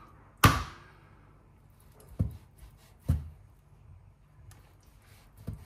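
Chef's knife knocking against a cutting board while the skin of a duck breast is scored: one sharp knock about half a second in, then two duller thuds about two and three seconds in, and faint taps near the end.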